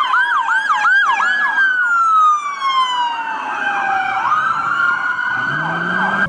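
Police car siren: a slow wail that glides down in pitch and climbs back, overlaid with a fast yelp of short rising-and-falling sweeps, about four a second.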